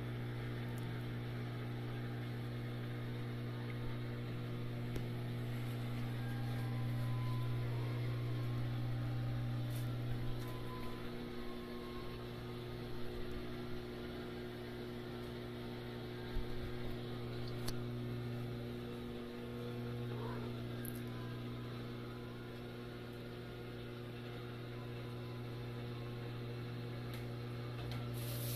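A steady low hum throughout, with a few faint clicks and taps.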